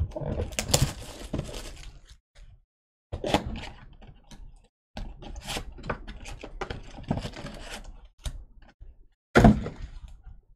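Sports card packs and their box being handled: bursts of rustling and scraping with sharp clicks and knocks, four bouts with short gaps, the loudest a brief knock near the end.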